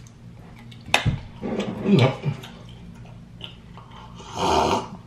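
Close-up eating sounds: chewing and wet mouth noises from about a second in, then a loud slurp from a mug near the end.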